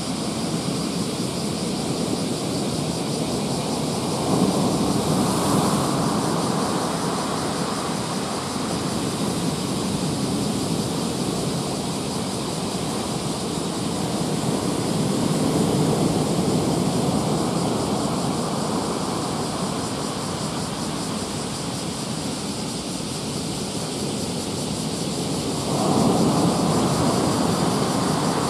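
Rough sea whipped up by a typhoon: waves breaking with a continuous rushing surf noise that swells louder three times, about four seconds in, around the middle, and near the end.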